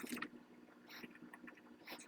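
Faint scattered clicks and light scrapes of tools and a wooden stock being handled, over a low steady hum.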